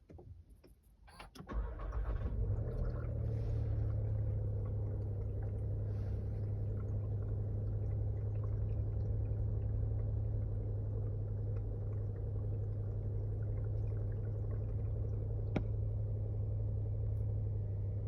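Škoda Slavia engine cranking and catching about a second and a half in, then idling steadily, with a water sloshing noise from the dashboard as it starts. A single sharp click sounds near the end.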